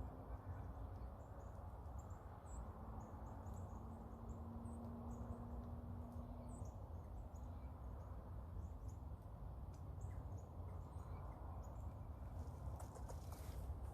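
Outdoor ambience: a steady low rumble with faint, scattered high chirps, with a faint steady hum through the first half and some crackling rustles near the end.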